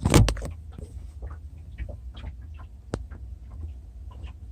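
Handling noise of hands working around plumbing hoses and clamps: a brief rustle at the start, then scattered small clicks and taps, with one sharp click about three seconds in, over a low steady hum.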